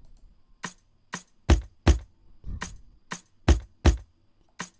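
Sampled Afro house percussion loop playing back from a DAW: four sharp drum hits per bar, repeating about every two seconds, the last two in each group with a deep, booming low end.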